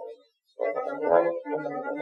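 Brass-instrument music; it stops briefly just after the start, then resumes with a run of notes.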